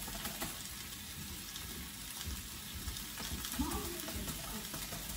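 Coated pork chops frying in hot oil in a cast-iron skillet: a steady sizzle with scattered small crackles.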